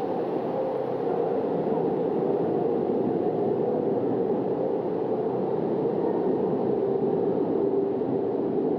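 Muffled, steady rushing of water heard with the microphone underwater, dull and without any high sounds.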